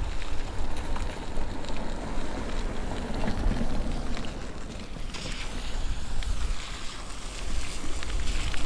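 Wind buffeting the microphone of a riding e-bike, a steady low rumble with a brighter hiss about five seconds in.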